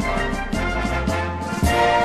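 Instrumental background music with sustained notes over a bass line and a steady drum beat.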